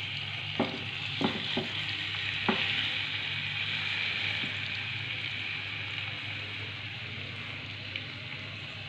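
Marinated chicken pieces sizzling in a lightly oiled non-stick frying pan, a steady hiss, with a few light knocks in the first few seconds as the pieces are set in place.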